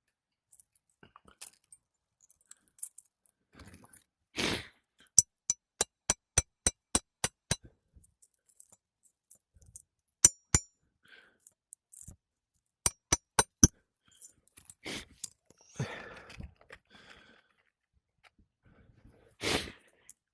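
A hammer taps metal roofing nails into an asphalt shingle, nailing down a replacement shingle. First comes a quick run of about nine taps, a few a second, then one sharp ringing strike, then four more taps. Duller thumps and rustles of shingles being handled fall between them.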